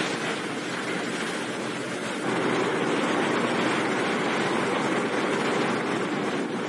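Steady drone of a ferry under way, heard from the open deck: engine hum mixed with wind and rushing water. It grows a little louder about two seconds in.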